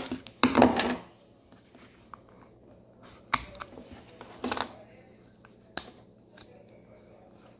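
3D-printed plastic spool-adapter parts being handled and fitted together: a few sharp plastic clicks and light rubbing and tapping. A louder, rougher sound comes in the first second.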